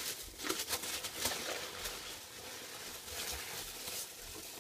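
Foam packing peanuts rustling as hands dig through them inside a cardboard box, a steady jumble of small clicks and scrapes.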